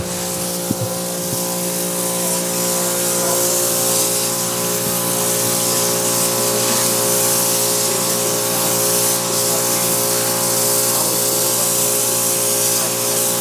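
Pressure washer running steadily, its motor humming under the hiss of the water jet blasting the scales off whole flounder on concrete.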